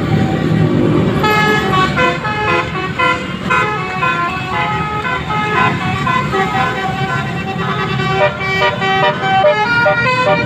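Bus telolet horn (a Basuri multi-tone air horn) playing a quick melody of stepped notes, starting about a second in, over the low rumble of the bus.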